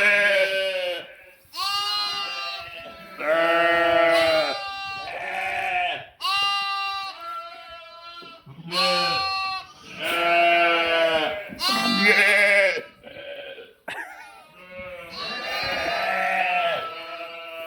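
A flock of sheep and lambs bleating, one call every second or two, some overlapping. The calls are wavering, with some higher-pitched ones among lower ones.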